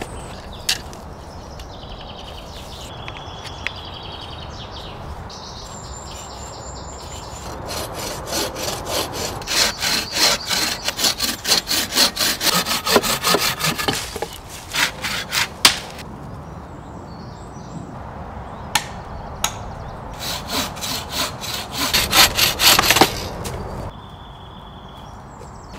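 Bow saw cutting through a dead branch with fast, regular back-and-forth strokes, in two spells: one starting about a third of the way in and a second near the end. Birds sing in the quieter stretch before the sawing starts.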